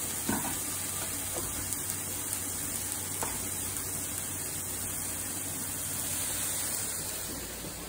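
Turkey sizzling steadily as it fries in a nonstick pan over a gas burner, with a few faint ticks and crackles.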